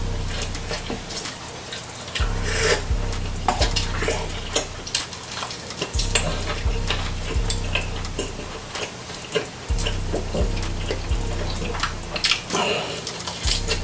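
Close-miked eating: wet chewing, lip smacks and tearing of grilled chicken inasal meat off the bone, a dense run of irregular clicks.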